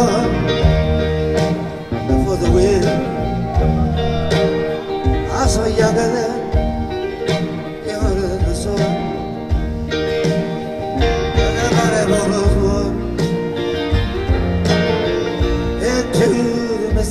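Live rock band playing a slow song, taped from the audience: guitars, bass and drums, with a man's voice singing in phrases now and then.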